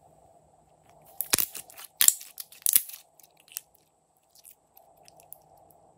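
Glossy slime stretched and pulled apart by hand, giving a burst of sticky crackling and popping clicks for about two seconds, then a few scattered clicks.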